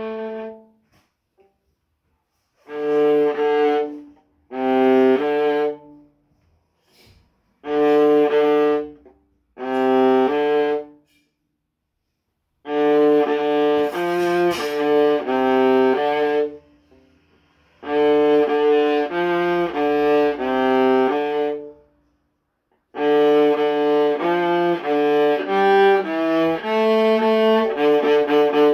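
Solo viola bowing a part of separate notes in phrases broken by silent rests: a held note ends right at the start, then short phrases of about a second and a half, and from about thirteen seconds in, longer phrases of about four seconds.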